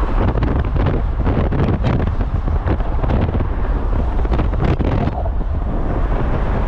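Strong wind buffeting the microphone: a loud, gusty rumble with bursts of hiss.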